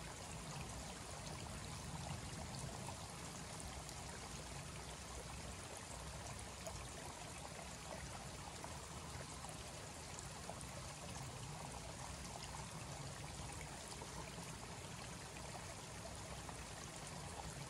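Shallow mountain creek running steadily, a continuous soft trickle of water over rocks and debris.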